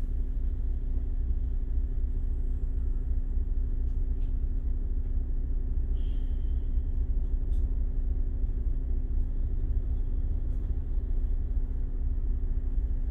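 Double-decker bus standing at idle in traffic, heard from inside the upper deck: a steady low rumble with a steady hum.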